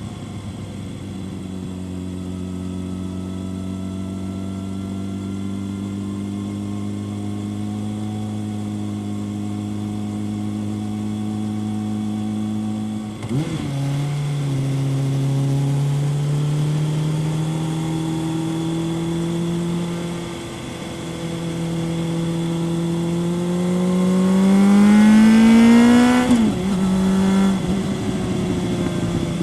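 Kawasaki ZRX 1100 inline-four through a Yoshimura exhaust, ridden at a steady pull that rises slowly. About halfway through the revs drop at an upshift, and the engine pulls up again. After a short roll-off the throttle opens hard and the engine revs up to its loudest near the end, then the revs fall sharply at the next shift.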